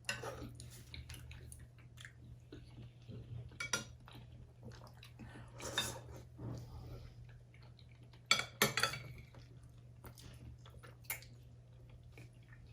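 Spoons clinking and scraping against bowls of goto during eating: a handful of separate clinks, the loudest cluster about eight to nine seconds in.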